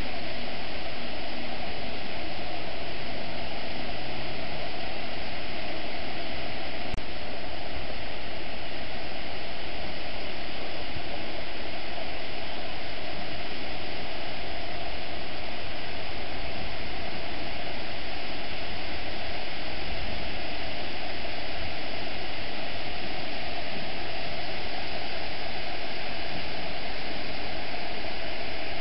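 Steady, unbroken rushing noise of water flowing through a canal lock.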